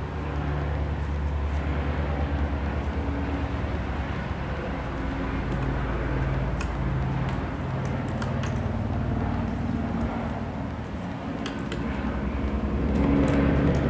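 Steady low hum of a running vehicle engine or nearby traffic, its pitch shifting a few times, with a few faint clicks.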